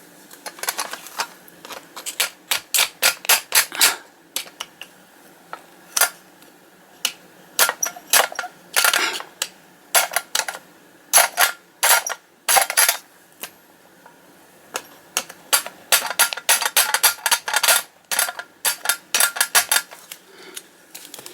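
Sharp taps and clicks of a tool on the thin tin-plate of a Bandai toy car as its locating tabs are knocked down, coming in quick irregular clusters of several a second with short pauses between them.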